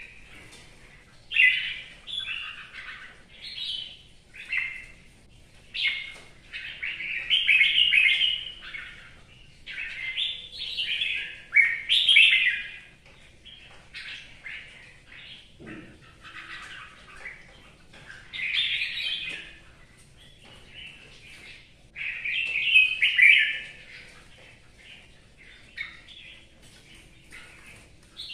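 Red-whiskered bulbul singing: short, bright warbling phrases every second or two, with a single knock about halfway through.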